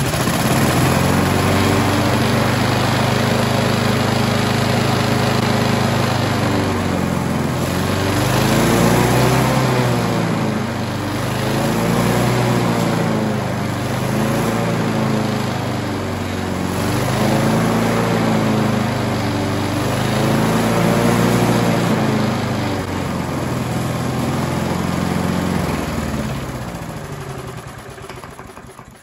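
Briggs & Stratton Sprint 375 four-stroke single-cylinder lawnmower engine running, steady at first. It then revs up and down over and over as the carburetor's throttle butterfly is moved by hand. This override shows the engine can reach far better RPM than it does on its own, which points to a governor-spring fault. Near the end the engine slows and stops.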